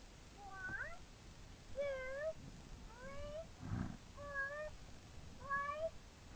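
A cat meowing five times, about one short meow a second.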